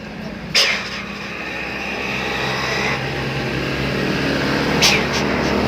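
A large tour bus's engine running with a steady low drone that grows gradually louder, as if the bus is drawing closer. Two short, sharp high-pitched bursts cut through, about half a second in and again near the end.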